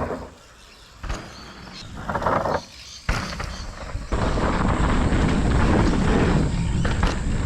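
Mountain bike rolling down a dirt trail: a sharp knock about three seconds in, then from about four seconds steady wind buffeting on the microphone and tyre rumble as the bike picks up speed.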